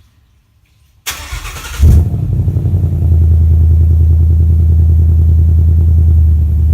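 2017 Ford Mustang GT's 5.0-litre V8 being started: a short crank about a second in, the engine catching with a loud flare about two seconds in, then settling into a steady, loud, deep idle.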